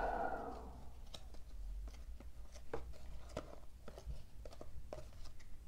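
Hockey trading cards being sorted by hand through a stack: faint, light flicks and clicks of card edges at irregular intervals.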